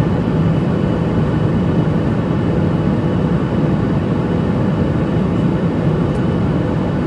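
Steady cabin noise of a Boeing 737 MAX 8 in flight: its CFM LEAP-1B turbofan engines and the airflow make an even, low rush heard from a window seat over the wing.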